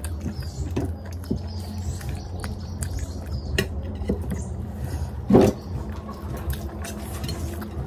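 Close-up eating sounds: chewing and wet mouth clicks while fingers squeeze and gather rice and curry on a plate, with one louder mouth sound about five and a half seconds in. A steady low hum runs underneath.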